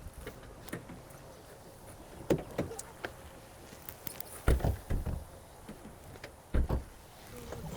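Car doors being shut: several heavy thumps, the loudest about halfway through and a pair near the end.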